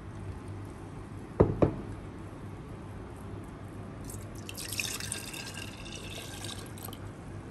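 Two sharp knocks in quick succession about a second and a half in. Then jaggery syrup is poured from a plastic measuring cup into a clay pot, splashing for about three seconds from around four seconds in.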